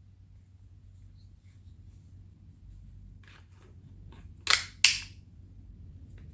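Taurus 9mm pistol being function-checked: a few faint clicks, then two sharp metallic clacks about a third of a second apart as the action is worked.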